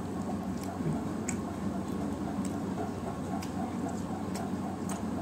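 Close-up eating sounds: a handful of scattered wet clicks and smacks from chewing and from fingers mixing rice into fish curry on a steel plate, over a steady low hum.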